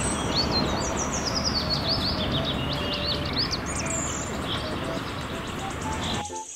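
Small birds chirping in quick, high chirps over a steady rumble and hiss of outdoor background noise; both cut off abruptly near the end.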